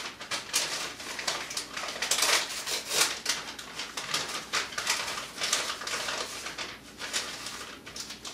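Plastic garbage bags used as packing rustling and crinkling in a cardboard box as hands rummage through them, in irregular crackly bursts.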